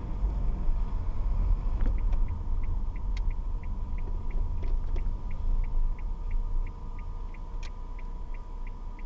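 Car interior sound picked up by a dash cam's built-in microphone: a steady low engine and road rumble as the car drives slowly, with a faint steady whine, and a light regular ticking at about three a second from about two seconds in.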